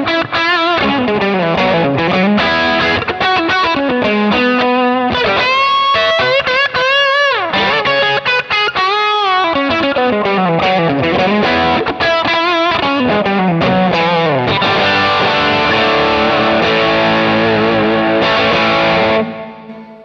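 Distorted electric guitar lead played through a Kemper Profiler EQ'd for a brighter, more cutting sound: deep, bass and fullness cut; upper mids, treble and presence boosted. The lead lines have string bends and vibrato, then held notes ring for several seconds and are stopped just before the end.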